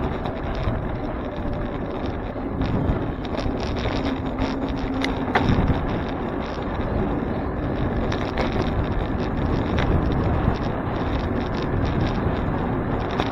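Wind buffeting the microphone of a bicycle-mounted camera while riding, over the steady rumble of tyres on the road. Frequent small clicks and rattles come from the bike and mount going over bumps.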